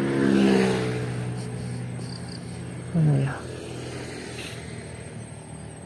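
A steady engine drone from a passing vehicle, holding one pitch and slowly fading away. About three seconds in comes a short sound that falls in pitch.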